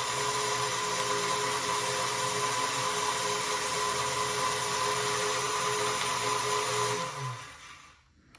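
Electric motor of a Lionel #182 remote control magnetic crane hoisting the energized magnet with its load of steel pieces: a steady whir that slows, falls in pitch and stops about seven seconds in.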